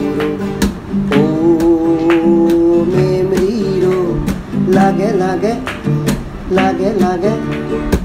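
Background music led by strummed acoustic guitar, with a melody line that bends in pitch over the chords.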